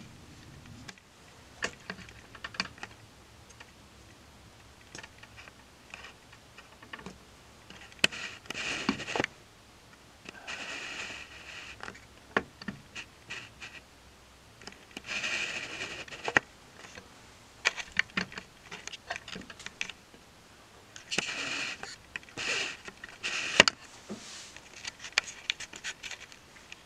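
Close handling noise: scattered sharp clicks and a few short bursts of rustling, like clothing and gear being moved right next to the microphone.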